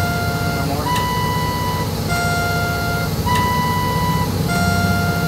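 Electronic two-tone beeping that alternates high and low, each tone lasting about a second, with a sharp click each time the high tone begins. A steady low hum runs underneath.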